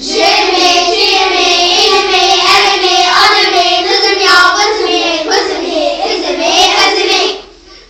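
A child singing in one continuous held line, stopping about a second before the end.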